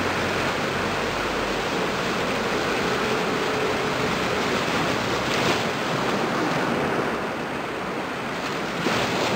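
Small waves washing onto the shore in a steady rush of surf, with brief louder swishes about halfway through and near the end.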